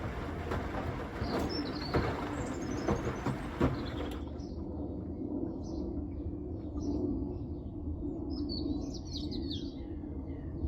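Zanussi Essential ZWF12070W washing machine running a wash, with a steady low hum from the drum, and knocking from its load for the first few seconds. About four seconds in the sound changes abruptly, and birds chirp in the background over the hum.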